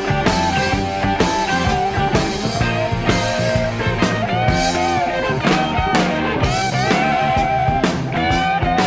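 A 1970s rock record playing: electric guitar lines with bending notes over a steady drum beat.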